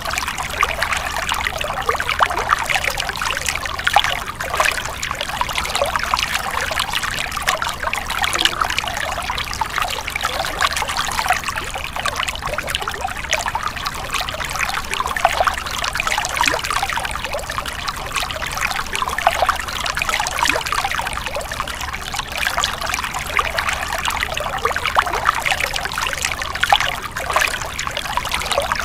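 Stream water splashing and trickling over rocks, a steady babble with many small splashes.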